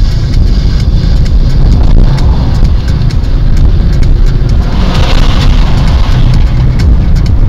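Road vehicle travelling, a continuous heavy low rumble of engine and tyre noise, with a louder swell of noise about five seconds in.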